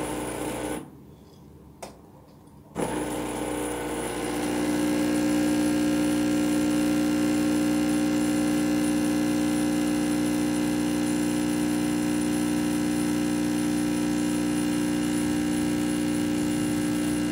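Oster Prima Latte II espresso machine's pump humming as it brews a shot into the cup. A short run cuts off for about two seconds with a single click, then the hum comes back, grows a little louder about four seconds in and holds steady.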